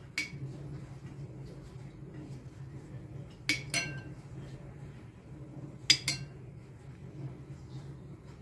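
Metal spoon clinking against a ceramic soup bowl while scooping soup: five short clinks, one just after the start, then a pair about three and a half seconds in and another pair about six seconds in. A steady low hum runs underneath.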